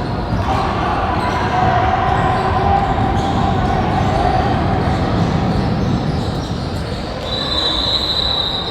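Youth basketball game in a gym: a ball bouncing on the court amid a steady din of voices echoing in the hall, with a brief high steady tone near the end.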